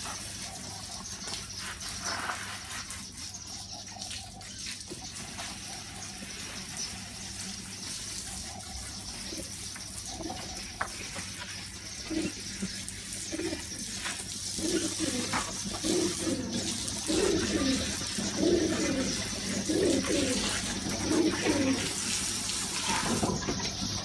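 Water from a hose pipe splashing onto a bicycle as its soap is rinsed off, a steady hiss. In the second half, pigeons coo over and over.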